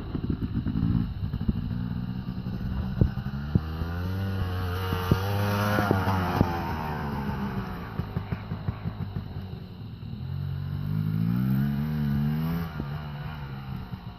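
Motocross dirt bike engine revving as the bike is ridden, the pitch climbing and dropping back twice, with short clicking and ticking throughout.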